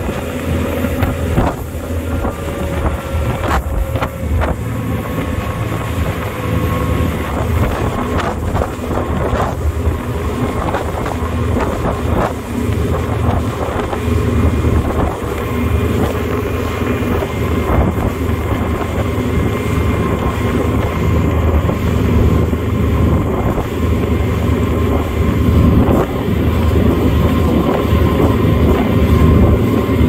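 Motorboat engine running steadily at speed, a constant low hum, with wind blowing on the microphone and a few short knocks in the first ten seconds.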